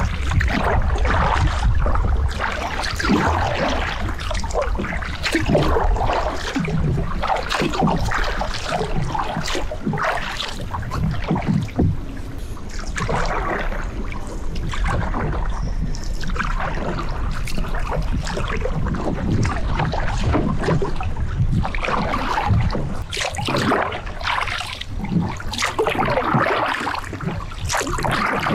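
Double-bladed kayak paddle strokes swishing through calm river water, one every two seconds or so, over a low wind rumble on the microphone.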